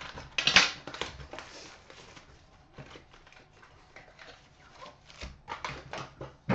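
Trading-card packaging being torn open and handled: irregular crinkling and crackling of wrappers and cards, loudest about half a second in.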